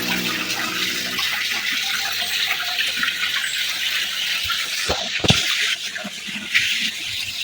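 Steady rush of running water, with a couple of dull knocks about five seconds in.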